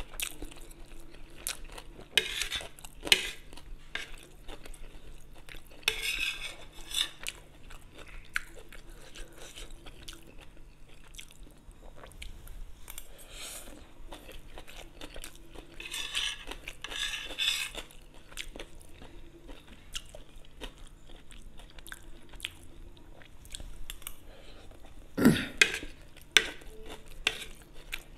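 Close-up eating sounds of chow mein noodles: chewing and slurping, with a metal spoon clinking and scraping on the plate between mouthfuls. One sharper, louder knock comes near the end.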